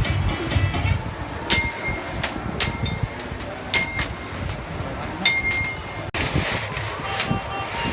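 Metal tools clinking sharply against metal, four times, each strike ringing briefly, over steady workshop background noise.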